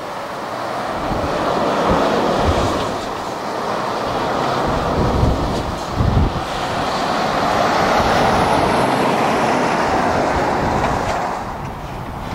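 Loaded car-transporter lorry driving past: engine and tyre noise swells as it approaches and passes, with a few low thumps about halfway through.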